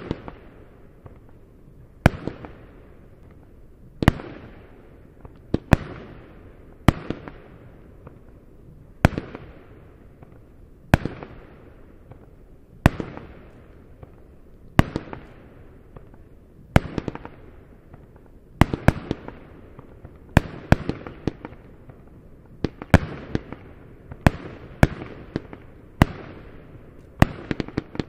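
Weco 'Bad Bull' fireworks battery firing shot after shot: each a sharp bang followed by a fading hiss, about one every two seconds, then coming faster and in close pairs in the last third.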